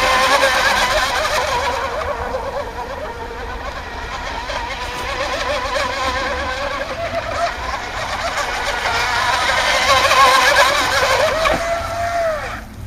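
RC hydroplane boat's engine running at speed on the water, its pitch wavering constantly as it throttles and turns. Near the end it holds a steady note for a moment, then drops away.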